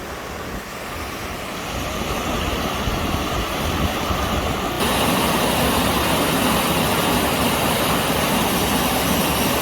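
Waterfall on a river in high flow, a steady rushing of water that grows louder over the first couple of seconds and steps up abruptly about halfway through.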